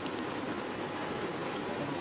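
Steady, even background hiss with no distinct tones or knocks.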